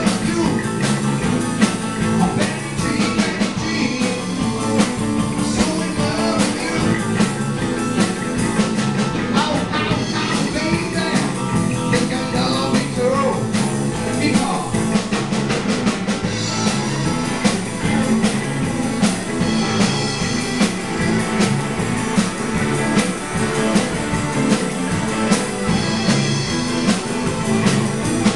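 Live blues-rock band playing with electric guitars, electric bass, drum kit and keyboard, keeping a steady driving beat.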